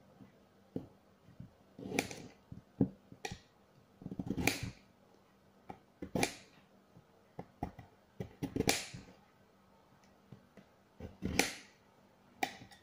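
A kitchen knife scraping the skin off a carrot in short, irregular strokes, with sharp clicks and knocks of the blade and carrot against a glass cutting board.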